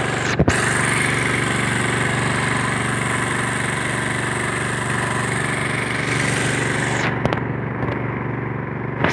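Engine of a motorized disinfectant sprayer running steadily with a loud hiss, and a sharp knock about half a second in. The hiss drops away about seven seconds in while the engine keeps running.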